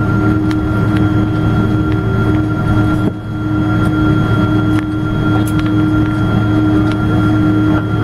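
Cabin noise of a Boeing 777-200 taxiing after landing, heard inside the cabin: the twin jet engines and airframe make a steady drone with a low hum and several steady tones. It is interrupted by a few faint ticks and rattles and dips briefly about three seconds in.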